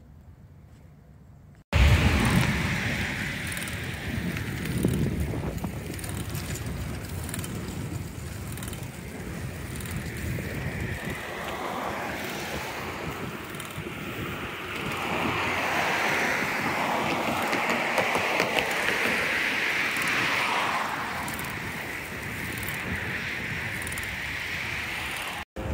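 Wind noise on a phone's microphone while riding a bicycle along a roadside path. It comes in suddenly about two seconds in after a short quiet stretch and runs on as a steady rush, growing somewhat louder in the second half.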